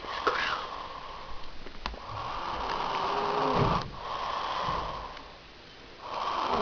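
A sleeping man snoring: slow, noisy breaths in and out, one breath building to a deep snore about three and a half seconds in that cuts off sharply.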